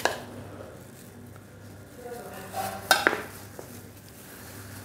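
A metal spoon knocking and clinking against a stainless steel mixing bowl and ceramic ramekins as batter is spooned out: one sharp clink right at the start and a few sharp knocks about three seconds in.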